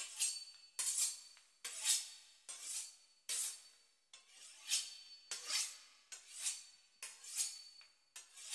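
A run of short, crisp rasping strokes, about one a second and somewhat uneven, each fading quickly, with a faint steady high tone behind them and nothing in the low end.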